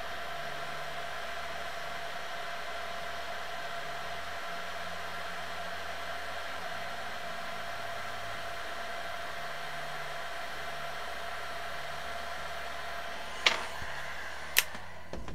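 A small blower fan hissing steadily as workshop equipment runs during board rework. Two sharp clicks near the end, and the hiss drops away right after the second.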